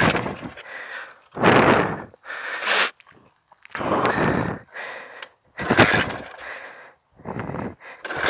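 A person's heavy, rough breaths, one rush about every second, from the effort of trying to kick over a flooded pit bike that won't fire.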